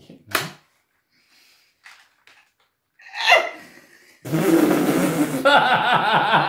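A few sharp clacks from an orange toy foam-dart blaster being handled, then two people break into loud, hearty laughter a little after four seconds in.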